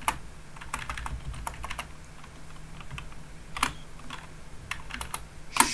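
Computer keyboard keys clicking in short, irregular runs of typing with pauses between keystrokes.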